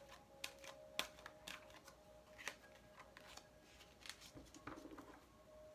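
Faint scattered clicks and flicks of a deck of oracle cards being shuffled by hand, with a card laid down on the tabletop; the sharpest snap comes about a second in.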